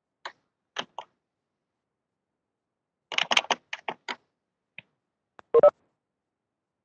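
Clicks and taps of a computer keyboard and mouse: a few single clicks early, a quick run of them about three seconds in, and two louder knocks near the end.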